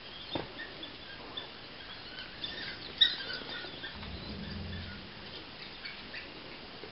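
Wildlife-documentary soundtrack playing from a television: scattered short, high chirps and squeaks over a faint natural background, with one sharp click about three seconds in.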